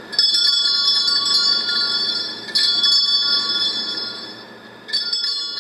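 Bells ringing in three struck peals about two seconds apart, each ringing out and fading before the next.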